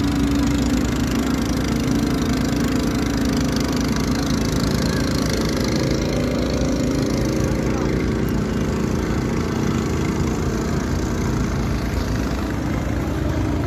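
A small engine running at a steady idle, with voices in the background.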